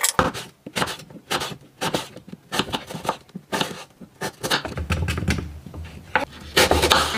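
Kitchen knife slicing an apple into thin slices on a wooden cutting board: a run of short, sharp taps as the blade cuts through and hits the board, about three a second.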